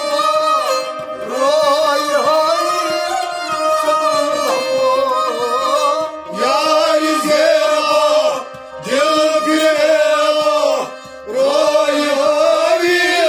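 A male voice sings a Kashmiri Sufi song in ornamented phrases with short breaks between them, over a harmonium's steady held notes.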